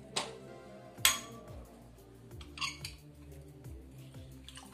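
Two sharp metal clinks, then a short rasp, as a metal hand-press lemon squeezer is picked up from a ceramic plate and used on half a lemon, with faint background music underneath.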